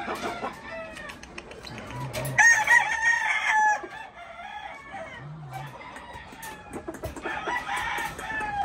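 Gamecock crowing: one loud crow about two and a half seconds in, and a second, fainter crow near the end.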